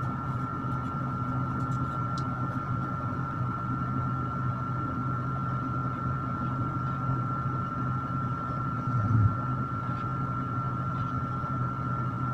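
Electric fan running: a steady motor hum with a constant high-pitched tone over it. A soft low bump about nine seconds in.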